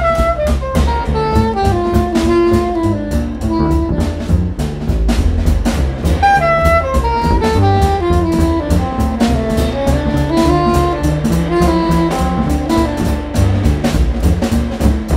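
Jazz trio playing: a soprano saxophone carries the melody in lines that step down in pitch several times, over plucked double bass and a drum kit with busy cymbal strokes.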